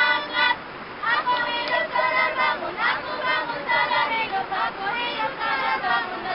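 A group of young women's voices singing a camp theme song together, in held sung notes.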